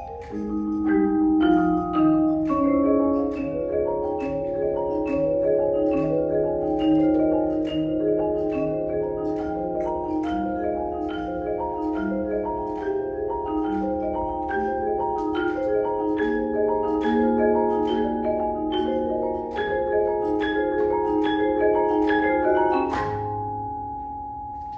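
Vibraphone and marimba duet playing a quick, busy passage of struck mallet notes. It ends on a final struck chord a little before the end, after which a vibraphone note rings on.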